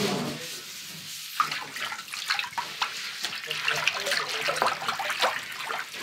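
Water pouring and splashing, as in washing up, with scattered knocks and clinks of dishes.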